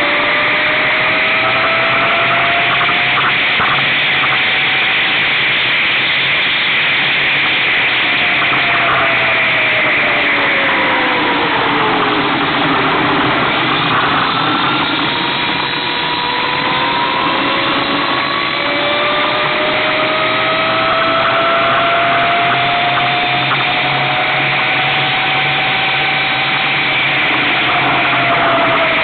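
2009 Brammo Enertia electric motorcycle's drive whining as it is ridden, the whine's pitch following road speed: it falls as the bike slows, starting about a quarter of the way in, climbs steadily again from a little past halfway, and drops once more near the end. Steady wind and road noise run underneath.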